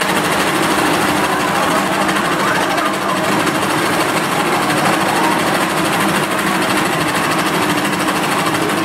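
Paintball cannon firing in a rapid, continuous stream, a loud, steady mechanical rattle of shots that does not let up.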